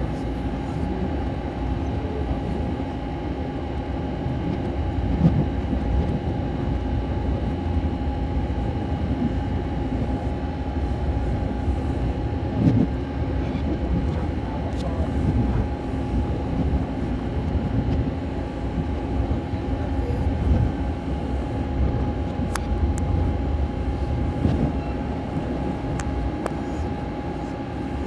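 Vitória a Minas passenger train running along the track: a steady low rumble with a constant whine, and a few louder knocks along the way.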